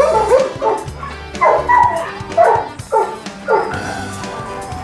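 Shelter dogs in their kennels barking and yipping, a short bark about once a second, over background music.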